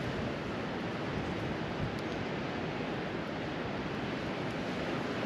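Steady rush of wind buffeting the microphone.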